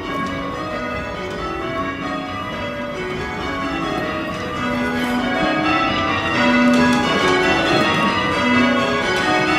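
Change ringing on a ring of eight church bells cast by John Taylor & Co in 1965, tenor in B, the bells striking one after another in a continuous, even sequence with their tones overlapping.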